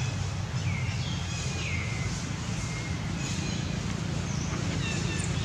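Outdoor ambience: a steady low rumble under birds chirping, short high calls with a couple of falling chirps about one and two seconds in.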